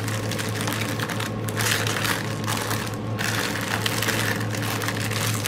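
Small plastic bags of diamond-painting drills being handled and packed back into their container: a continuous crinkling of plastic with many small rapid clicks.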